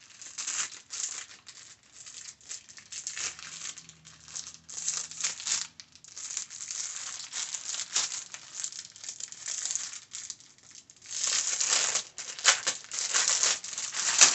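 Plastic face-mask packaging crinkling and rustling in irregular bursts as it is handled and pulled open, growing louder and busier near the end.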